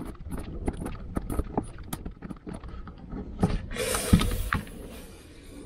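A knife blade scraping and cutting through the oil-soaked pleated paper of a used oil filter element, a run of small clicks and scratches. About four seconds in there is a sudden louder rustling scrape and a knock.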